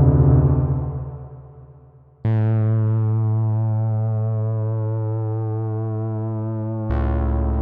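Electronic synthesizer sound effect: a low droning tone fades away over about two seconds. A new sustained synth tone then starts suddenly, wavering slightly as it slowly decays, and a deeper note comes in near the end.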